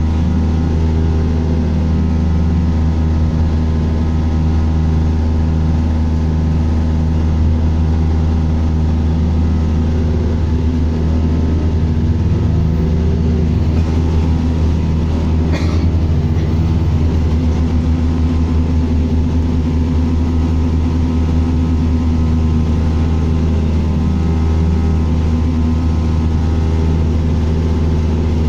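Bus engine and drivetrain heard from inside the passenger cabin: a steady low hum, with pitches that rise and fall as the bus pulls away and changes speed. There is a short sharp click about halfway through.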